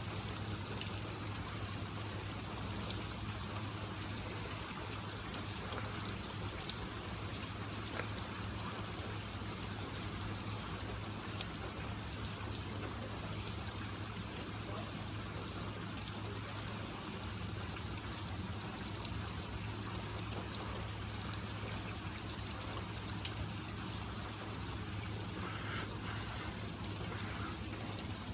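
Heavy rain falling steadily, with runoff water pouring and trickling, and now and then the tick of a single drop.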